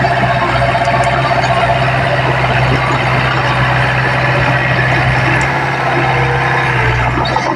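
Komatsu D20P mini bulldozer's diesel engine running steadily as the dozer works dirt.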